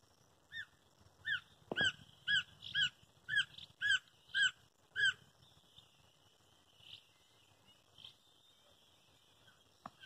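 Woodpecker calling: a series of about nine short, down-slurred notes, roughly two a second, over the first five seconds, with a single sharp knock about two seconds in.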